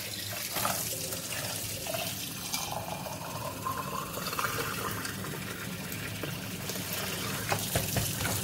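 Water running steadily from a kitchen tap into a sink and splashing as a raw chicken is washed under it, with a few small knocks near the end.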